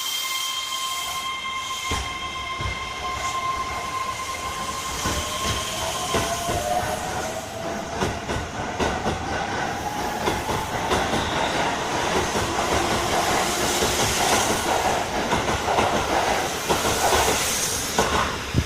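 Keihan Main Line electric train running along the track, its wheels clicking over the rail joints, with a motor whine that rises steadily in pitch.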